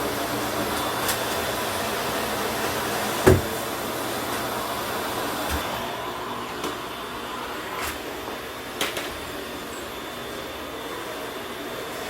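Vacuum cleaner running with a steady hum, growing quieter and duller about halfway through. A sharp knock about three seconds in, with a few lighter clicks later.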